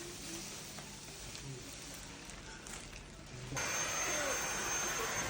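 Vacuum cleaner switched on about three and a half seconds in, then running steadily with a thin high whine. Before it, only faint room noise.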